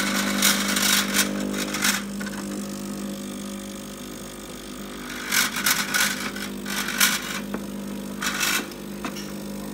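Gaggia Espresso Color's vibratory water pump running steadily under load as it forces water through the coffee for an espresso shot, a sound that presses on the ears. The glass cup on the metal drip-tray grate rattles and scrapes against it in short bursts, near the start, around the middle and once more near the end.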